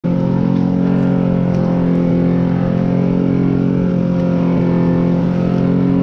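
An engine running at a steady speed, its note holding constant without revving.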